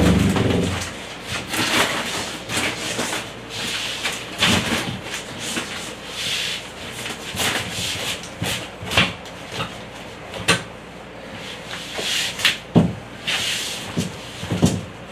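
Sheet of drywall scraping and knocking as it is worked into a tight space, with a few heavier thumps among irregular scrapes and bumps.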